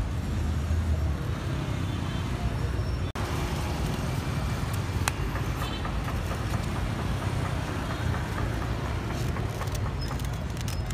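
Street traffic noise: a steady low rumble of passing vehicles, with a brief cut-out about three seconds in.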